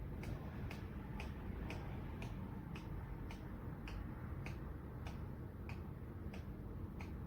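20-inch Hurricane box fan running, a steady low rush of air, with a light regular ticking about twice a second over it.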